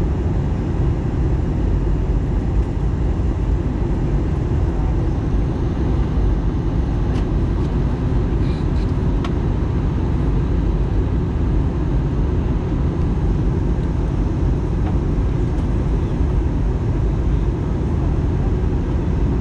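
Steady low rumble inside the cabin of an Airbus A320 in flight: engine and airflow noise, even throughout.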